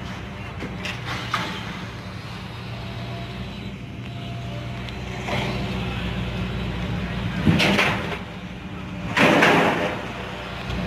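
A pickup truck's engine running steadily with a low hum, with three louder noisy rushes about five, seven and a half, and nine seconds in, the last two loudest.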